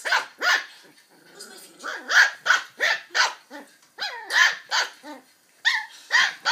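Border Terrier puppy yapping in play: a string of about a dozen short, high-pitched barks, with short pauses about a second in and again near the end.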